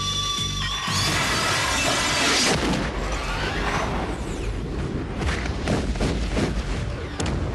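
Film trailer soundtrack: music with booms and crashing impact effects. A loud rushing swell comes about a second in, followed by a run of sharp hits.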